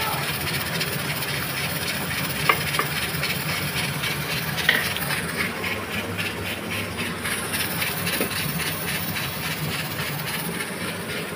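Pressure cooker at full pressure, steam hissing steadily out past its jiggling weight valve while keema cooks inside. A few light clicks of utensils or a lid come in the first seconds.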